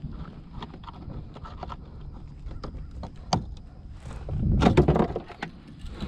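Handling noises in a plastic kayak: scattered light clicks and knocks, a sharp click a little past three seconds in, then a louder burst of knocking and rubbing about four and a half seconds in.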